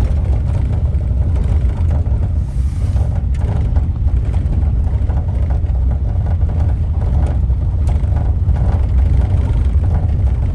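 Wind buffeting the microphone: a loud, steady, churning low rumble.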